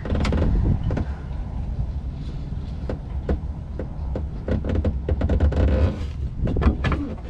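A rubber hose and the plastic parts around it in a jet ski's engine bay being pushed and rubbed by hand. There are scattered clicks and knocks over a low steady rumble.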